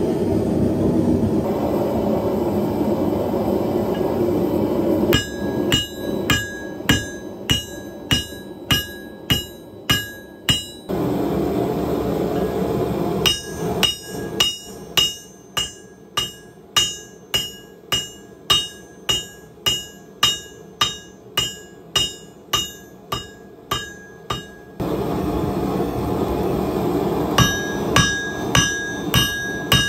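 A propane forge burner runs with a steady rushing roar, broken by runs of hammer blows on a red-hot railroad spike over a railroad-rail anvil, about two strikes a second. Each blow rings with a clear, high metallic tone. The burner roar comes back twice between the hammering runs, as the spike goes back into the heat.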